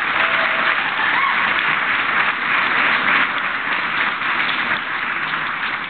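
Crowd applauding, a steady run of many hands clapping that eases slightly near the end.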